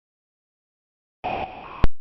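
Silence, then about a second in a short hissing noise burst, loudest at its start, cut off by a single sharp click, the loudest sound.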